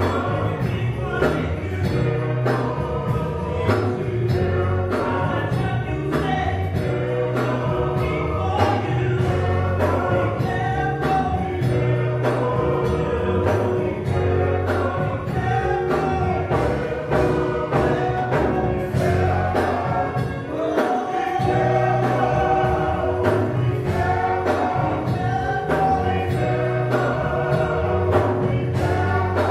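Live gospel music: a men's vocal group singing in harmony, backed by a band with drum kit and keyboard, with a steady beat and bass line.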